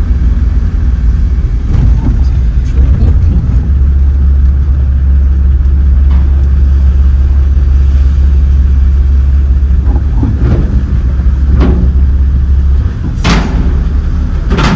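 A vehicle engine running with a steady low rumble. The rumble dips briefly near the end, and a couple of sharp knocks sound in the last two seconds.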